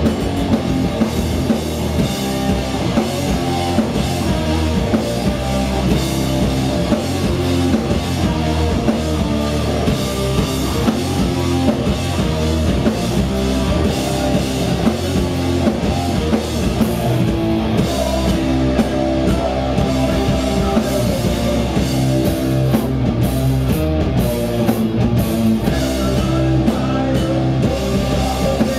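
Heavy metal band playing live: electric guitars, bass guitar and a drum kit together in a loud, steady passage.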